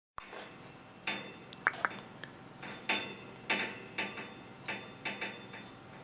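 Parrot making a series of short, sharp chirps and clicks, about ten over a few seconds, irregularly spaced.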